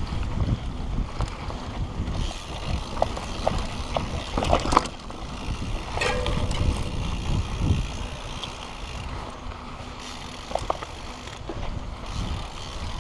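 Mountain bike rolling down a dirt singletrack: wind buffets the camera microphone and the tyres rumble over the ground. Sharp clicks and rattles from the bike come over bumps, thickest about four to five seconds in.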